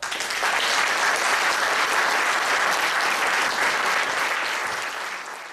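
A roomful of people applauding, starting suddenly and thinning out slightly near the end.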